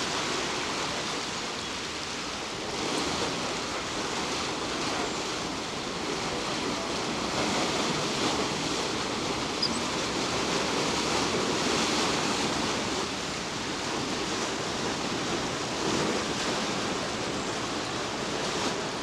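Water churning and rushing in a canal lock chamber as the lock fills: a steady rush that swells slightly in the middle.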